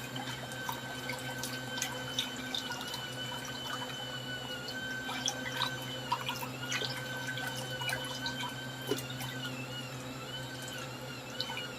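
Mini portable turbine washing machine running submerged in a bucket of water, churning a pair of socks: water sloshing and dripping with small splashes, over a steady motor whine that wavers slightly in pitch.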